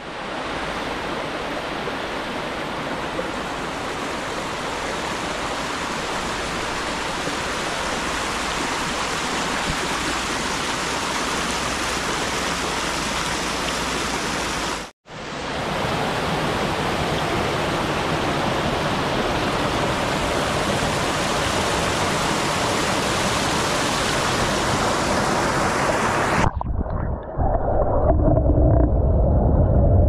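Small waterfalls on a rocky woodland brook rushing steadily. About three-quarters of the way in, the microphone goes underwater and the sound turns to a muffled, deep rumble of churning water and bubbles.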